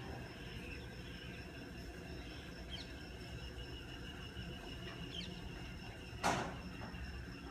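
Outdoor garden ambience: a few faint, short bird chirps a couple of seconds apart over a steady low rumble and a thin, steady high tone. About six seconds in, a brief sharp noise stands out as the loudest sound.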